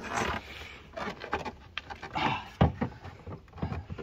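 A VW Polo's plastic rear light cluster being tugged and rocked by hand, giving irregular knocks and clicks as it holds fast on its retaining clip.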